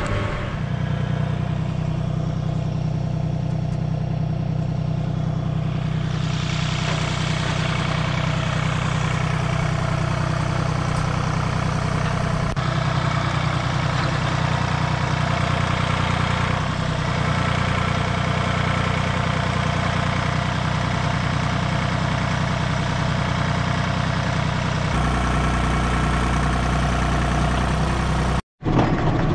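Farm tractor's diesel engine running steadily at constant speed, heard first from inside the cab while towing a trailer, then driving a hitch-mounted hydraulic backhoe loading manure. The sound shifts at several cuts and drops out briefly near the end.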